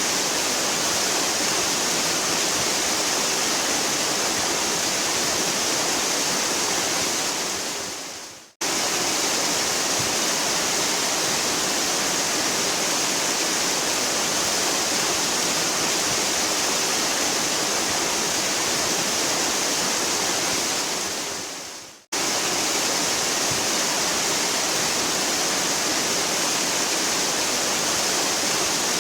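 A waterfall's steady rushing, hissy roar of falling water. It fades away twice, about eight seconds in and again about twenty-one seconds in, and each time cuts straight back in.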